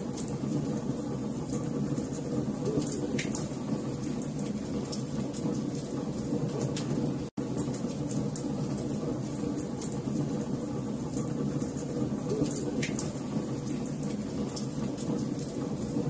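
Wood fire of burning logs, with a steady low rush of flame and frequent sharp crackles and pops. The sound cuts out for an instant about seven seconds in.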